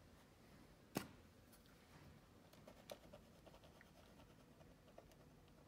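Faint light scratching and ticking of the repair stick's marker tip being worked onto a small scratch in dark-stained wood, with one sharp click about a second in.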